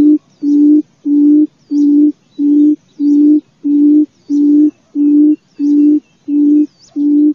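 Barred buttonquail's booming call: a long run of low, even hoots of steady pitch, about five notes every three seconds. It is the call used to lure buttonquails in.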